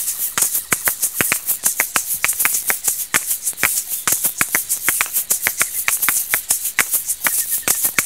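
A pair of small hand-held shakers shaken in a quick, steady rhythm, each stroke a sharp rattling click with a bright hiss.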